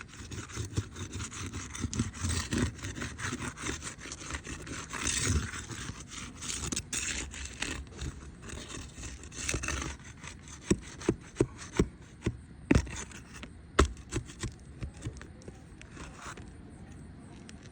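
A tool scraping and rubbing against a shingle as it is worked loose to get at its nails, followed by a run of sharp knocks about two-thirds of the way through.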